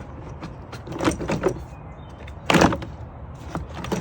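Plastic air intake being worked loose and pulled out of a car's engine bay: a few plastic knocks and scrapes about a second in, then a louder clatter about halfway through.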